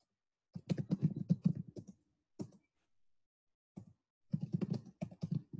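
Quick runs of light clicks and taps, in two clusters of about a second and a half each: one starting about half a second in and another near the end. They are typical of a pen or stylus being tapped and dragged across a writing surface while an equation is written out.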